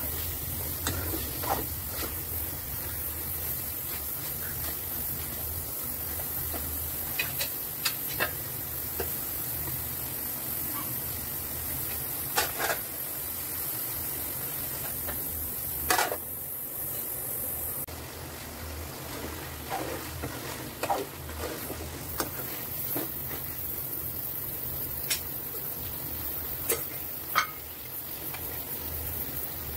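Chicken curry sizzling steadily in a metal pan on a gas stove, with a scattered few short, sharp clicks and knocks.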